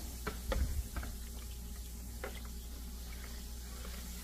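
A spoon stirring a watery solution in a plastic bowl: a few light taps of the spoon against the bowl in the first second, then faint liquid swishing over a steady low hum.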